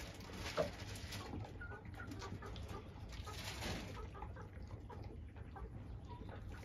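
Hens clucking softly in short, scattered notes, over goats crunching grain at plastic feeders, with one sharp knock about half a second in.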